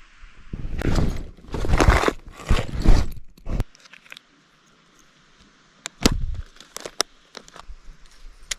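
Loud crunching and rustling for about three seconds, then, after a short pause, a scattering of sharp clicks and snaps.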